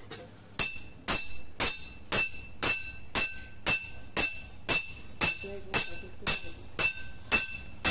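Hand hammer striking a boti blade forged from truck leaf-spring steel on an anvil, about two blows a second. Each blow has a clear metallic ring.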